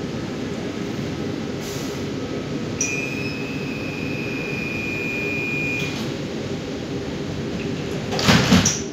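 Brussels metro train standing at a platform, its interior humming steadily. A high steady tone sounds for about three seconds in the middle, and a short loud burst of noise comes near the end.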